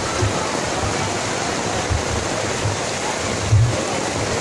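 Heavy rain pouring down in a steady hiss. A few dull low thumps break through it, the loudest about three and a half seconds in.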